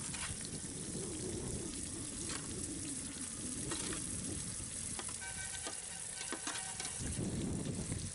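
Marinated chicken pieces sizzling in hot oil in a cooking pot, with scattered small crackles and pops.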